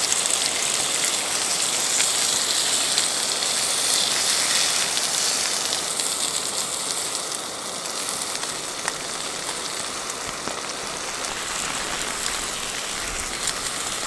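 Steak searing in a non-stick frying pan over a gas canister stove on high heat: a steady hissing sizzle that eases a little about halfway through.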